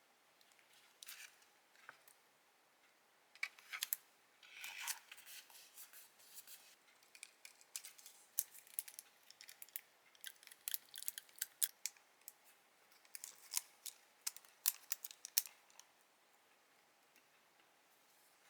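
Scissors snipping paper in many short, quick cuts, irregular and in clusters, stopping about three seconds before the end.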